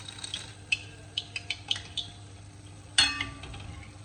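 A metal spoon scoops boondi out of a pan of hot frying ghee, making a string of quick light clinks against the pan over a faint frying sizzle. About three seconds in comes one louder, ringing metallic clang.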